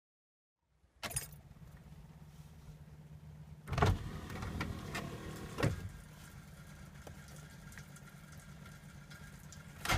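A small electric motor switches on with a click about a second in and hums steadily and low. Two louder clunks come near the four- and five-and-a-half-second marks.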